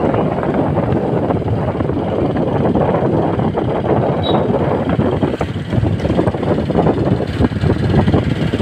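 Motorcycle on the move: wind rushing and buffeting over the rider's microphone, with the engine running underneath.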